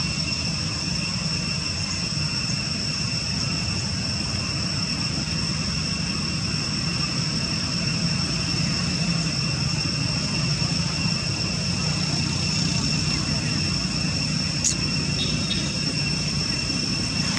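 Steady background drone: a low rumble beneath a constant high-pitched whine, with one faint click near the end.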